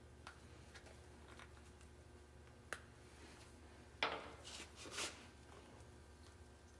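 Small workbench handling sounds as fuel-pump parts and hose are worked by hand: a single sharp tick, then a short scraping rustle about four seconds in, over a faint steady hum.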